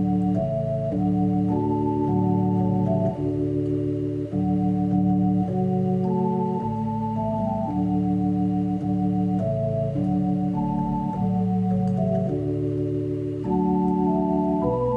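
Background music: sustained organ chords changing every second or so.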